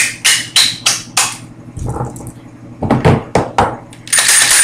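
Handling of a pistol and its holster: a run of sharp clicks and knocks, about three a second, then a second short run, and a longer rasping scrape near the end.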